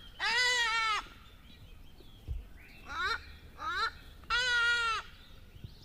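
Goats bleating: two long, even calls about four seconds apart, with shorter rising bleats between them, repeating in a regular pattern.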